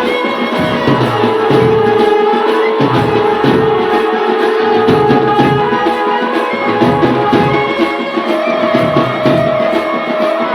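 Music with a steady drum rhythm under long, held melody notes.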